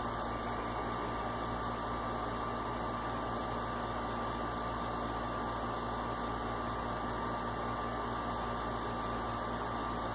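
Steady background hum and hiss with a faint constant high tone, unchanging throughout, with no barking.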